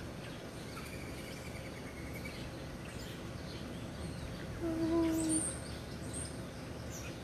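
Steady outdoor background noise with small birds chirping and trilling. About five seconds in, a short steady tone lasting under a second stands out as the loudest sound.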